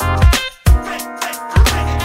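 Background music with drums and bass.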